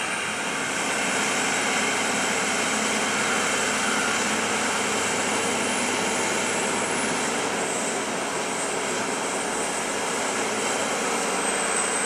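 John Deere 9630 four-wheel-drive tractor's Cummins 15-litre six-cylinder diesel engine running steadily under load while pushing and packing chopped maize silage on the pit. A high whine sits over the engine and drops a little in pitch near the end.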